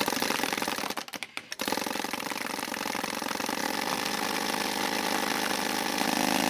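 Automatic paintball gun firing in rapid succession, a fast continuous stream of pops that breaks off briefly about a second in and then runs on steadily.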